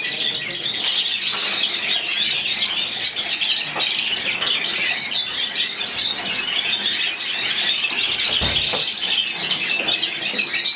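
Canaries chirping and singing all at once, a dense, high-pitched twittering that never breaks.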